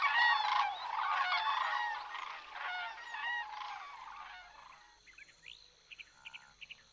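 A flock of migrating birds calling in flight: many overlapping calls that fade away over about four seconds. After that, only a few short chirps and trills.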